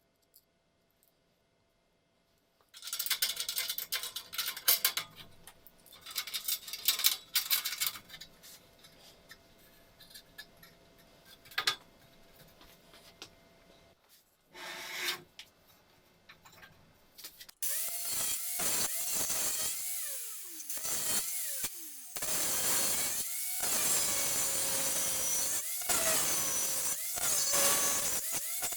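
Irregular scraping and rubbing of metal parts, then about two-thirds of the way in an angle grinder starts running loud and steady. Its motor pitch dips and recovers again and again as the disc bites and eases off the metal.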